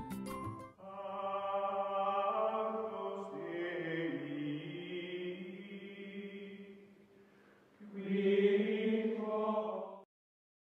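Outro music of choir-like chanting: held vocal chords that shift slowly in pitch, fade briefly, then swell into a louder final chord that cuts off suddenly about ten seconds in.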